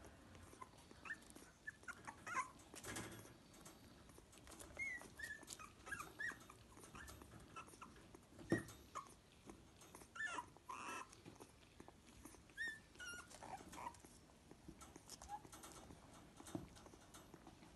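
Young puppy suckling from a milk feeding bottle, with small wet sucking clicks and short high squeaks and whimpers of falling pitch, scattered throughout.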